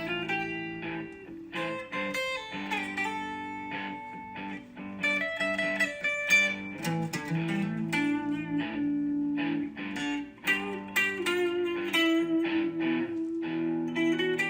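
Background music: plucked guitar playing a gentle melody over held chords.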